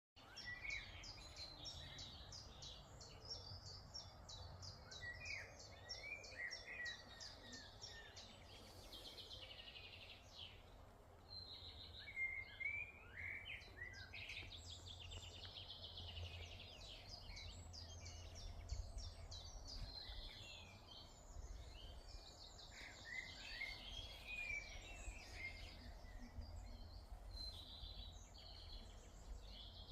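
Several songbirds singing and calling at once, with rapid trills and short chirps overlapping throughout, over a steady low rumble of wind noise.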